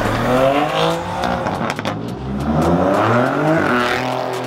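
Performance car engine accelerating hard, its pitch rising in two long pulls, the second about halfway through.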